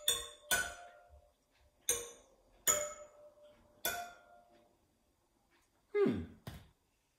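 Bicycle wheel spokes struck with a metal rod, five irregularly spaced strikes, each ringing a clear metallic tone that fades quickly. Near the end comes a short sound that falls steeply in pitch, followed by a click.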